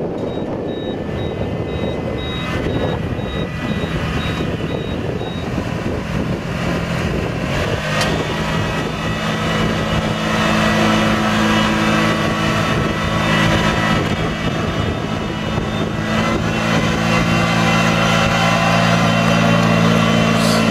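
Riding rice transplanter's engine running steadily, with a high, rapid beeping over roughly the first five seconds. From about eight seconds in the engine hum is steadier and a little louder.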